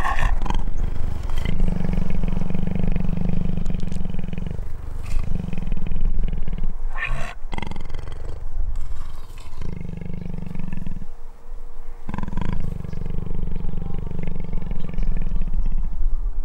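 Jaguar vocalizing: a series of long, low calls with brief pauses between them.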